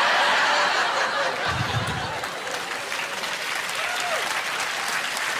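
Audience applauding and laughing after a comedian's punchline, loudest in the first second or two, then easing off a little.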